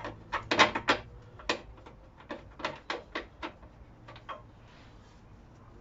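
Irregular run of sharp metal clicks and knocks as a short subframe bolt is handled and hand-started into its thread, busiest in the first second and a half and dying away after about four seconds.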